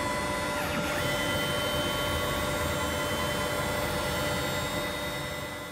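CNC router spindle cutting an aluminium plate: a steady whine made of several held tones over a rough cutting noise. The tone pattern shifts about a second in, and the sound fades out at the end.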